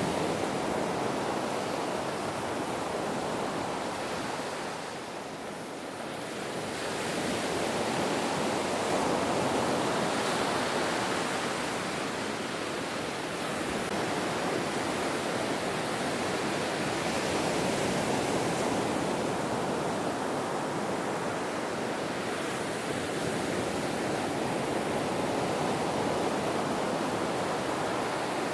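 Ocean waves washing on the shore in a continuous rush of surf, swelling and easing slowly. It dips about five seconds in and builds again a few seconds later.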